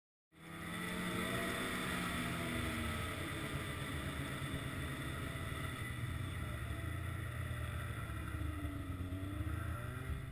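Snowmobile engine running steadily while riding over a snow trail, heard from on board; it cuts in abruptly just after the start, and its pitch sags and climbs again a couple of times.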